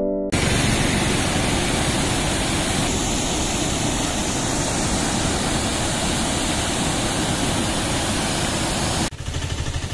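Steady rushing roar of a large waterfall. It starts suddenly as the music stops just after the start, then cuts off about nine seconds in to a quieter, low rumbling noise.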